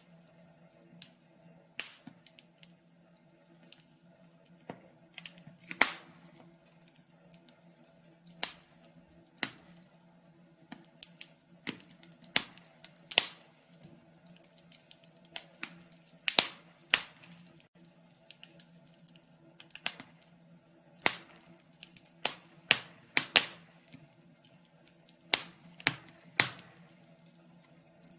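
Wood fire crackling in a fireplace: irregular sharp pops and snaps, a handful of them much louder, over a faint steady low hum.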